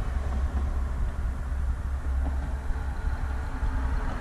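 2016 Dodge Charger Hellcat's supercharged 6.2-litre V8 running with a steady low rumble.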